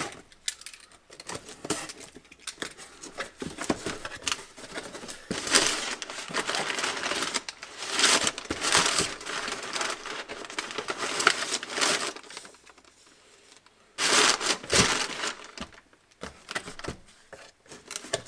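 A cardboard box being slit open with a utility knife and its flaps pulled back, then brown packing paper crinkling and rustling as hands dig through it, with a loud burst of crumpling near the end.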